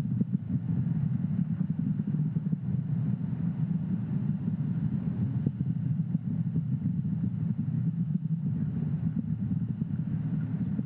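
Falcon 9 first stage's nine Merlin 1D engines firing at full thrust, picked up onboard the booster: a steady low rumble with quick crackles running through it.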